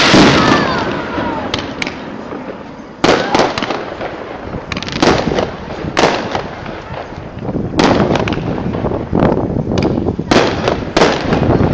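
Aerial firework shells bursting in a display: a string of loud bangs a second or two apart, with crackling in between.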